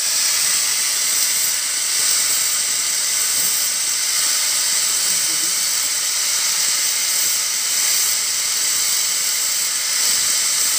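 Angle grinder running steadily, its disc grinding a small piece held against it, giving a constant high hiss.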